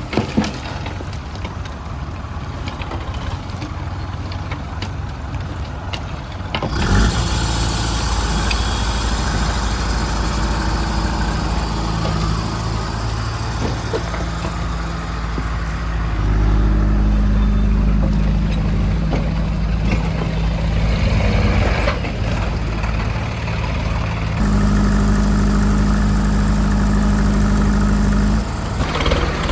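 Heavy diesel engines of a farm tractor and a backhoe loader running under load during a mud recovery. The engine sound steps up sharply in level about a quarter of the way in and again around the middle, then drops back shortly before the end.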